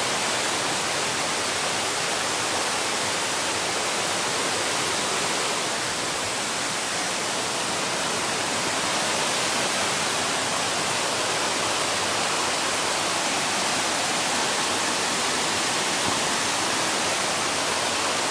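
Mountain stream flowing steadily, an even, unbroken hiss of running water.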